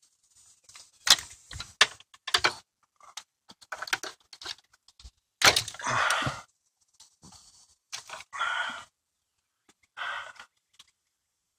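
Plastic wiring-harness connectors on a car's steering column being unclipped and pulled apart by hand: a series of sharp clicks and snaps, the loudest about halfway through, with rustling and scraping of the wires in between.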